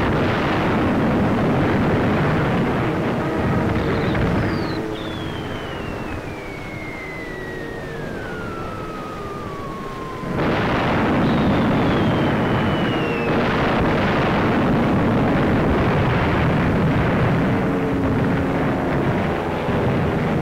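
Air-raid bombardment: bomb explosions and rumble, with the whistle of falling bombs as long falling tones. One whistle drops for several seconds and ends in a sudden loud blast about ten seconds in, and a second, shorter whistle follows.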